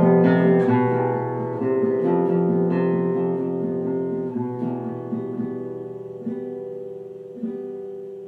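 Nylon-string classical guitar played fingerstyle: plucked melody notes over ringing bass notes. The notes thin out and get quieter, and a last note is plucked about seven and a half seconds in and left to ring out as the passage closes.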